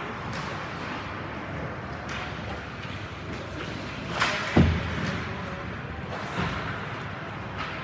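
Game ambience with a steady murmur of voices, broken by sharp impacts: a crack about four seconds in, a louder heavy thud just after it, and a lighter knock a couple of seconds later.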